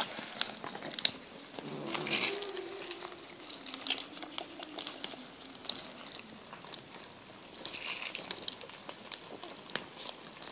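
Several cats chewing and crunching raw fish and fish bones: a dense, irregular run of small wet clicks and crackles, with dry leaves crinkling under them.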